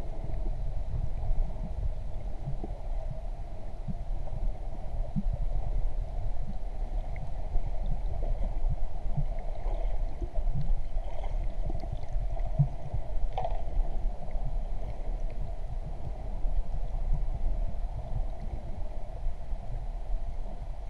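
Muffled underwater sound through a GoPro's waterproof housing: a steady low rumble with a droning hum over it, and a few faint clicks and knocks.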